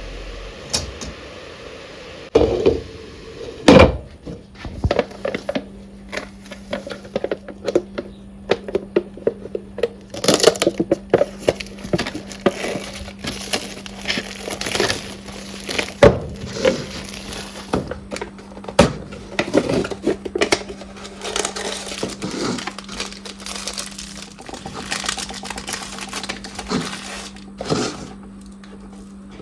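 Objects being handled and set down: a long run of knocks, clatters and crinkling, with a steady low hum starting about four seconds in.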